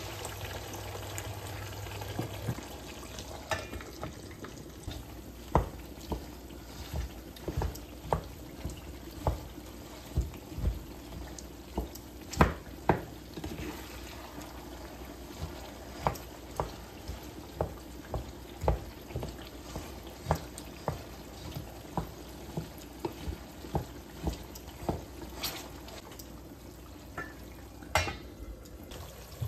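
Potatoes frying in oil in a pan, stirred with a utensil that knocks against the pan about once or twice a second.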